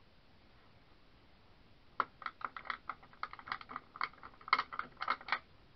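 Faint room tone, then about two seconds in a quick, uneven run of sharp clicks and taps that lasts about three and a half seconds.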